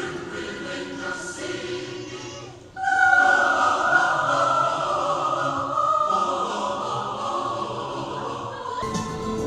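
Music with a choir singing: it dips briefly about two and a half seconds in, then comes back louder with long held notes. Near the end it changes to a busier orchestral passage with percussion.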